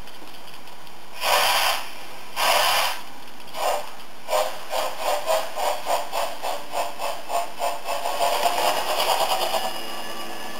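Digital sound decoder of a Märklin model BR 10 steam locomotive playing steam exhaust chuffs as the engine starts off: a couple of slow, separate chuffs, then chuffs that quicken steadily into rapid chuffing.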